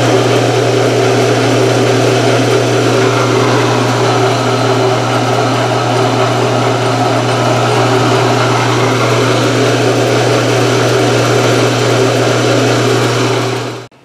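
Belt-driven CNC mill spindle and motor running at one fixed speed, nominally 2500 RPM, with a steady hum and whine. The sound cuts off suddenly at the very end.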